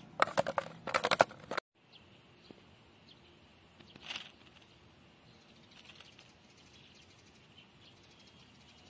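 A mullet flapping inside a hand-held plastic bottle trap: a quick run of rattling slaps against the plastic for about a second and a half, which cuts off abruptly. Faint outdoor background follows, with one brief high sound about four seconds in.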